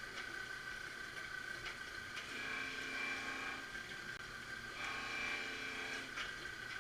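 Marunaka MG-500 straight knife grinder running its automatic idling passes: the grinding head's steady high-pitched tone swells and fades twice as the carriage travels along the knife, with a few light clicks.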